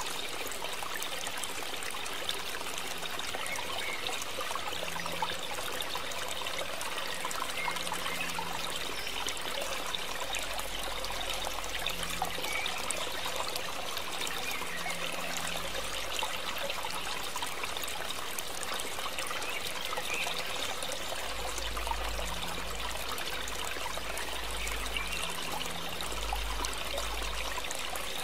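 Water boiling in a stainless steel pot: a steady bubbling hiss with many small pops.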